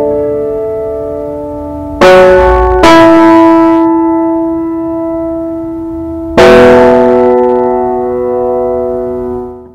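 Background music: slow, ringing chords struck about two, three and six and a half seconds in, each left to fade, before the music fades out at the end.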